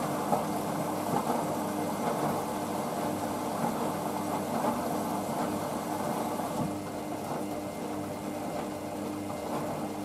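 Hoover VisionDynamic front-loading washing machine in its rinse, the drum tumbling wet clothes with a steady motor hum and water sloshing. It becomes a little quieter about seven seconds in.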